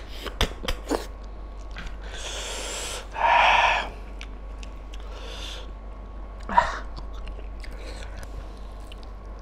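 Close-miked eating of mutton curry and rice by hand: wet chewing and lip-smacking clicks in the first second, then a loud hissing breath about three seconds in, and one short sharp mouth sound a little after the middle.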